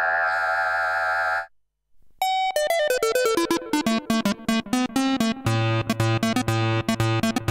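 Arturia MatrixBrute analog synthesizer playing: a held synth tone cuts off about a second and a half in, and after a short gap a fast sequenced run of short plucked notes begins, first stepping downward in pitch. A low bass note pattern joins about halfway through.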